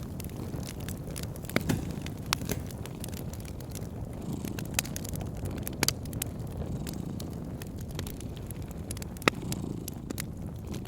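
Wood fire crackling in a fireplace: irregular sharp pops and snaps over a steady low rumble, the loudest pop near the end.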